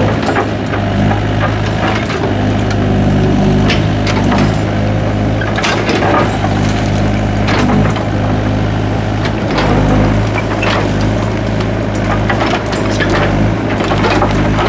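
Doosan DX55W wheeled excavator's diesel engine running with a steady low drone while its toothed bucket digs into the soil, with irregular scraping and clattering knocks of earth and broken bricks.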